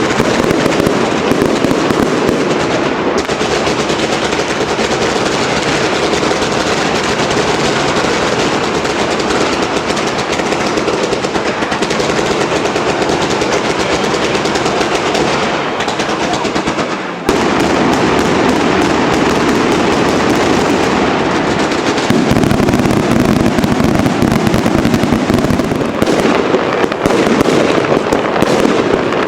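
Fireworks going off in a dense, rapid barrage of crackling bangs with no gaps between them. There is a brief break about 17 s in, and deeper booms join the barrage near the end.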